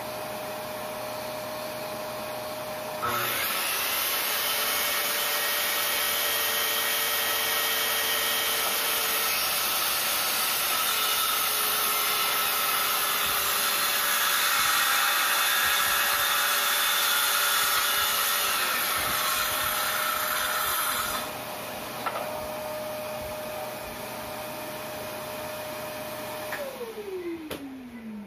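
A shop vacuum runs steadily as dust extraction. About three seconds in, a SKIL circular saw starts and cuts through plywood for about eighteen seconds, then stops. The vacuum runs on a few seconds more, and near the end its motor winds down with a falling whine.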